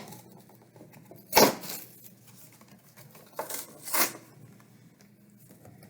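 A Barbie doll's cardboard and plastic box being handled and opened: a few short rustling, scraping sounds, the loudest about a second and a half in, and two more a couple of seconds later.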